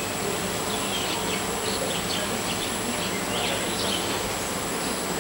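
Steady high-pitched drone of tropical forest insects, with short scattered chirps mixed in.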